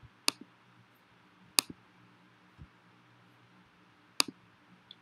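Three sharp clicks spaced a second or more apart, each followed quickly by a fainter click, over a faint steady low hum.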